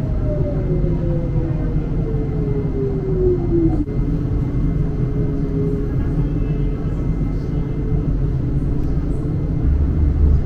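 Huangpu Line 1 tram running on its rails with a steady low rumble. An electric whine from the drive falls steadily in pitch as the tram slows, then breaks off about four seconds in, leaving a steadier hum.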